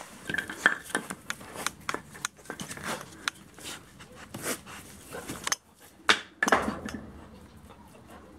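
A wirehaired pointer puppy biting and tugging at a cloth-wrapped wooden retrieving dummy on concrete: irregular clicks, knocks and scrapes of teeth, claws and the dummy, with a sharper knock about six seconds in.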